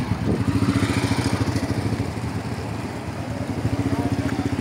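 Small motorcycle engine idling close by, a steady rapid putter that eases off slightly in the middle.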